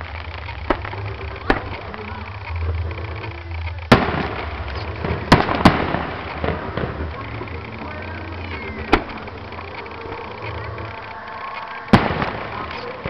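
Fireworks display: a string of sharp aerial shell bangs, the loudest about four seconds in, a pair close together a second and a half later and another near the end, with crackling after the biggest bursts.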